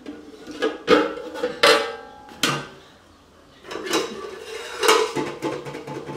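Stainless steel cookware clanking: a pot lid is lifted off and set down on another pot with a few sharp, ringing clanks, then a ladle clatters against the pot of curry about four seconds in.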